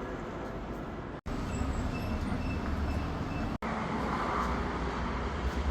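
City street ambience of steady traffic noise with a low rumble, broken twice by abrupt cuts where the sound drops out for an instant. A few faint high chirps come through in the middle.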